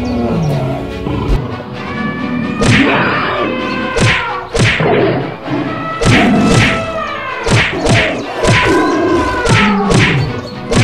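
Cartoon fight sound effects: a rapid series of hits and thuds starting about two and a half seconds in, mixed with falling animal growls and roars, over background music.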